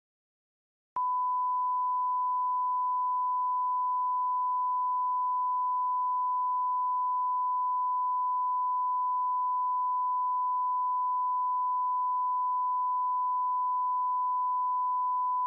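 A single steady electronic alert tone at one pitch, held without a break, starting abruptly about a second in: the attention tone of a mock Emergency Alert System broadcast, sounding before the warning message.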